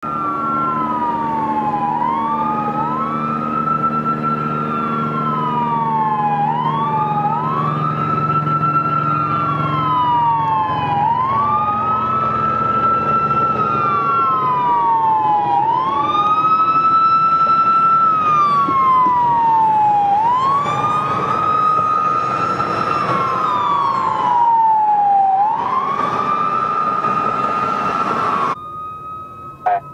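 Two emergency-vehicle sirens wailing together, each rising, holding and falling in slow cycles of about four to five seconds, with a low steady drone underneath through the first half. The sirens cut off abruptly near the end.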